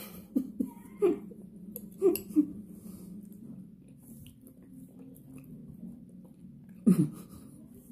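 A person chewing a bite of beef stew and ugali, with a few short mouth sounds in the first couple of seconds. Near the end comes a brief vocal hum that falls in pitch.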